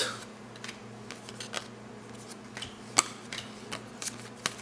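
Cardboard basketball trading cards flipped through by hand: a string of light, irregular clicks and snaps as cards slide off the stack, the sharpest about three seconds in, over a faint steady hum.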